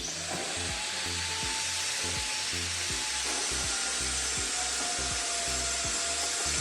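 A power tool running steadily: a loud hiss with a slightly wavering whine that starts abruptly, over background music with a steady beat.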